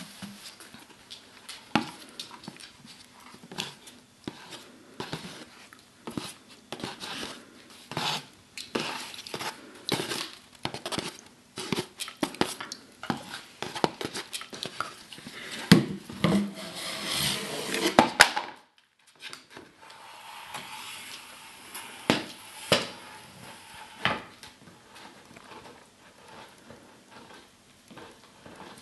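A dog playing with a cardboard mailing tube on a wooden floor: many irregular knocks, taps and scrapes of cardboard against wood, with a short break about two-thirds of the way through.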